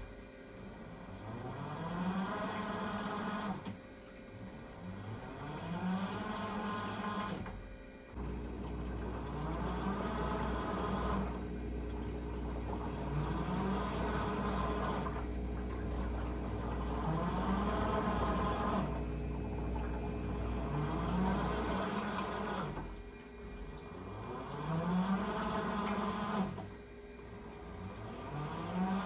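Teco W1068XS top-loading washing machine in its wash cycle: the motor whine rises and holds for a few seconds, stops briefly, then starts again, about every four seconds, as the pulsator turns one way and then the other. A steady low hum runs underneath through the middle stretch.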